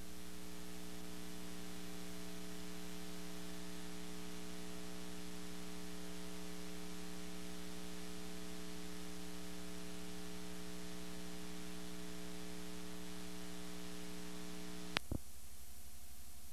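Steady electrical hum with hiss on the recording's audio line, made of several held tones. About fifteen seconds in, a sharp click cuts off most of the hum, leaving a fainter hiss and low hum.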